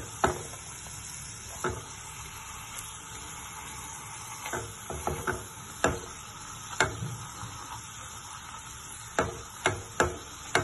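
Beef steaks frying in butter in a nonstick pan, sizzling steadily. A wooden spatula knocks and scrapes against the steaks and the pan now and then as it presses them down.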